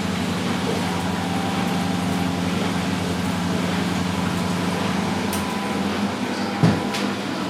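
Three washing machines spinning at once, a steady mechanical hum with a brief thump near the end.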